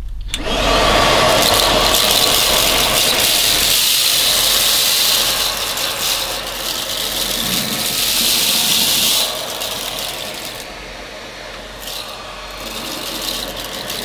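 Tineco Pure One S12 cordless vacuum, used handheld with its soft bristle brush, starts up and runs while sucking up spilled rice. It is in auto mode, which raised the suction when it detected the dirt. About nine seconds in it drops to a noticeably quieter level.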